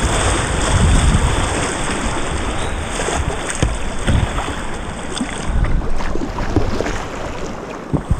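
Whitewater rapid rushing around a kayak, with paddle strokes splashing close by and wind buffeting the microphone. The rush thins a little past the middle as the boat reaches calmer water.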